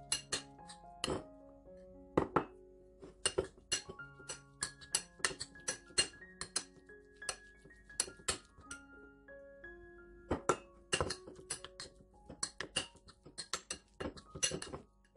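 Metal spoon clinking and scraping against a ceramic bowl in many quick, irregular taps while stirring minced pork in its marinade, over background music with held melody notes.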